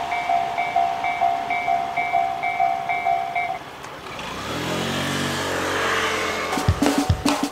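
Japanese level crossing warning bell ringing its repeated electronic ding about twice a second, stopping about halfway through as the crossing clears. A road vehicle's engine then pulls away, rising in pitch.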